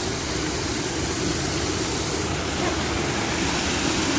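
Steady rush of a small artificial waterfall on a river, falling water heard from above.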